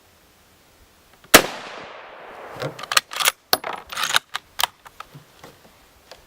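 A single shot from a Mosin–Nagant bolt-action rifle in 7.62×54R, a sharp report that fades over about a second. It is followed by a quick run of metallic clicks and clacks as the bolt is worked to eject the spent case and chamber the next round.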